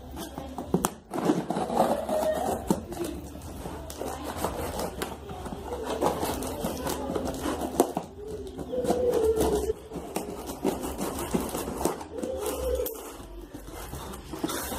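A cardboard shipping box being handled and its packing tape cut open with scissors: repeated scraping and sharp clicks of the blades and box against a hard floor.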